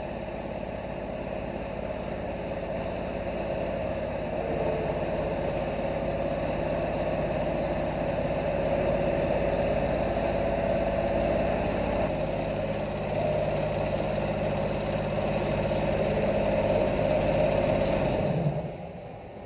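Tram running, a steady mechanical hum with a couple of held tones, growing louder over the first several seconds and cutting off abruptly near the end.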